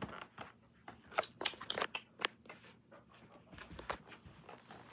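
A puppy chewing on a piece of paper, crinkling and crunching it in its mouth: a quick run of sharp crackles about a second in, then fainter ones later.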